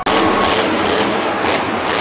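Grave Digger monster truck's engine running loud as the truck drives across the arena's dirt course: a dense, steady noise.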